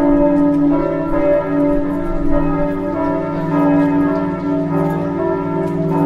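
Church bells ringing continuously, new strokes starting every second or so, so that the tones overlap and run into one another.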